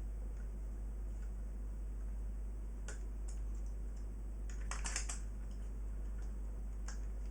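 Light plastic clicks and taps as the buttons and top panel of a DJ controller are handled: one click about three seconds in, a short cluster around five seconds, and another near the end, over a steady low hum.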